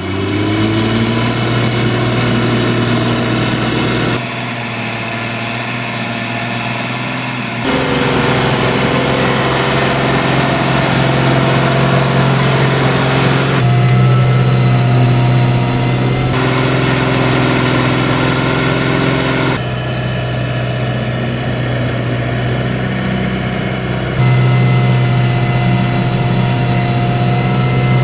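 Farm tractor diesel engines from a FIAT 1380 DT and a John Deere 5090M, working steadily under load while pulling ploughs through wet, muddy ground. The engine note changes abruptly several times as the sound cuts between shots, every few seconds.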